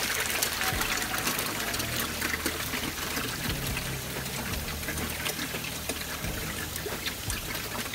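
Water pouring and trickling steadily into an IBC fish tank of a recirculating system, with a faint low hum underneath.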